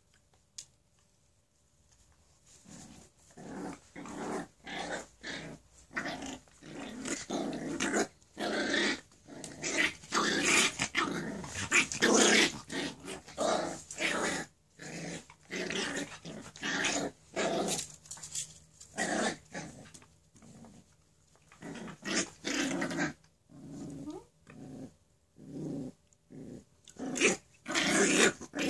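Dog play-growling: a long run of short, rough growls, one or two a second, starting about two and a half seconds in.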